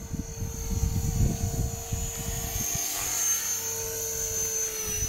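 RC stunt helicopter in flight: a steady whine from its rotor and motor, with a higher whine that grows louder about three seconds in as it comes lower and closer. A gusty low rumble sits under it for the first half.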